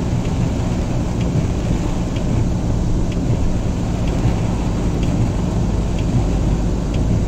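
Heavy rain and the rush of floodwater under a car's tyres, heard from inside the car as a steady, loud low rumble. Faint ticks sound about once a second.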